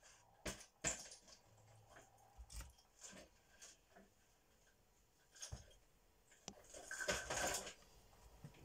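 Faint clicks and light knocks of raw fish and prawns being handled in a plastic bowl, with a louder stretch of rustling handling noise near the end.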